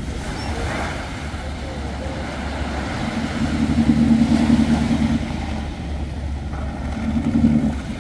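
Outboard motor of a small fishing skiff running as the boat pulls away, its note swelling louder about three seconds in and again briefly near the end. Small waves wash up the beach underneath.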